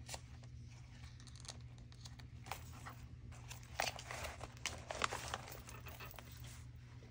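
Paper rustling and crinkling with light clicks as the pages of a handmade paper journal are handled and the book is shifted, busiest in the middle.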